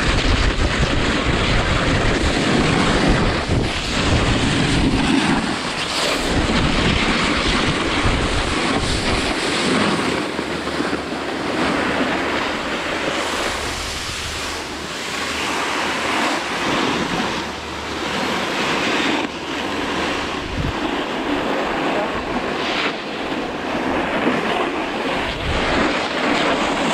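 Wind buffeting the camera microphone over a continuous hiss and scrape of riding down packed snow. The low rumbling buffeting is heavy for the first several seconds, then eases into a steadier hiss with small surges.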